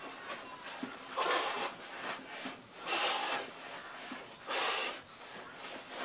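A man breathing out hard three times in short, noisy huffs, about a second and a half apart, as he dances.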